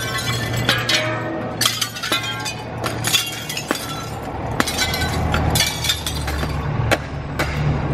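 Window glass shattering again and again, with shards tinkling down after each break, over music with a steady low bass.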